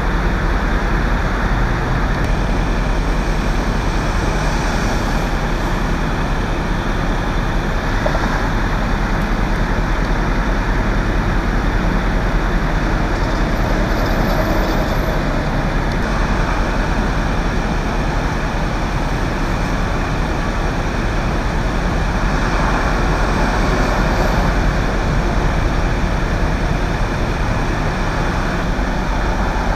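Steady rumble of vehicle traffic on a freeway, with no single event standing out.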